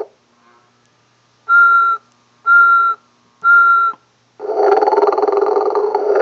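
Cartoon-style snoring from a snoring Santa: after a pause, three short whistling tones about a second apart, then a long rasping snore starting about two-thirds of the way in.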